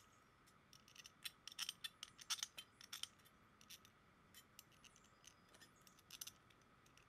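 Faint clicks and clinks of metal bolts being handled and moved between two water pumps. The clicks are scattered and come thickest between about one and three seconds in.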